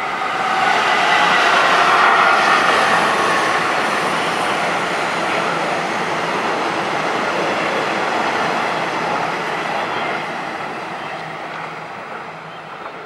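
A Taiwan Railways electric multiple-unit commuter train passes close by on the tracks. It is loudest about two seconds in, then fades gradually as it runs off into the distance.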